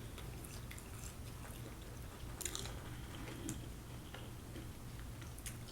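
A person chewing food close to the microphone: faint mouth sounds of chewing with a few small sharp clicks and smacks.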